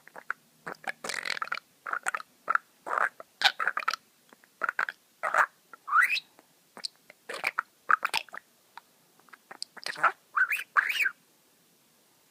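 Pet budgerigar vocalising in a run of short chirps and chatter, with a couple of rising squeaks.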